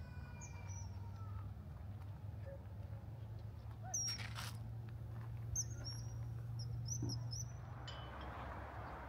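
Small birds chirping in short high calls, once about four seconds in and then in a quick run a little later, over a steady low hum. A honking call fades out in the first second and a half, and a steady rushing noise comes in near the end.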